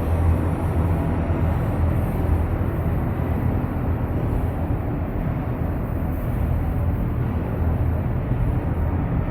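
Steady low rumble of ice-rink background noise, with no distinct events.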